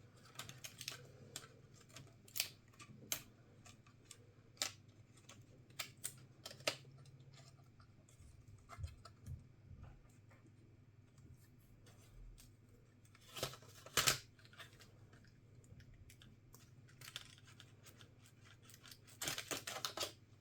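Scattered small clicks and taps of tools and parts being handled during laptop disassembly, with a louder run of clicks about two-thirds of the way through and another near the end.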